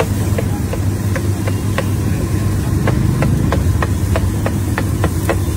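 Street-stall cooking pan flaming over a burner: a steady low hum and hiss, with sharp taps repeating about three times a second.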